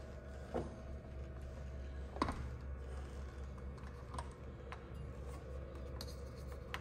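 Scattered light metallic clicks and taps as a fat-tire e-bike's front wheel is fitted back into the fork, the loudest about two seconds in, over a low steady hum.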